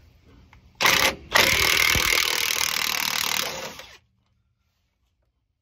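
Cordless DeWalt impact wrench hammering on a rusted sway bar link bolt to break it loose: a short burst, a brief pause, then a longer burst of about two and a half seconds that cuts off suddenly.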